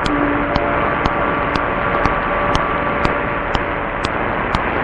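Noisy AM mediumwave radio reception of a weak signal: a steady hiss and hum with faint tones buried in it, and sharp regular ticks about twice a second.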